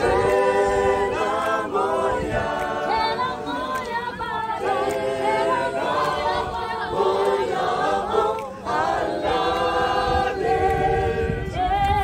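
A group of people singing together unaccompanied, several voices in harmony, in short repeated phrases.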